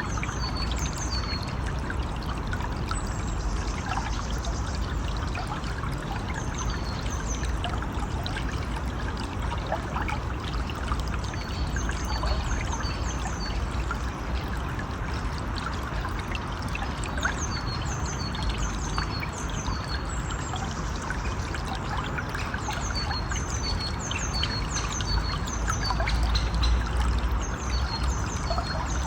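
A river or stream flowing steadily, with birds calling in runs of short, high, falling chirps that come and go.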